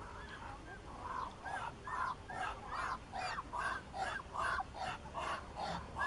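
Muscovy ducks calling: a rapid, regular run of short, harsh calls, about three a second, starting about a second in.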